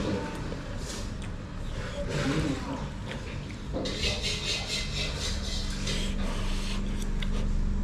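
Indistinct voices over background noise, with a steady low engine-like hum growing louder near the end.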